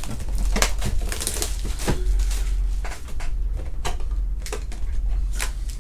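Trading-card packaging and cards being handled on a table: an irregular run of sharp clicks and crinkles, like a pack being torn open and cards slid and flipped, over a steady low hum.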